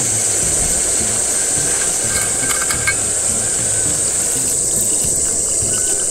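Water poured from a stainless steel bottle into a camp cooking pot of sliced beef, beginning in the second half, over light background music and a steady high-pitched hiss.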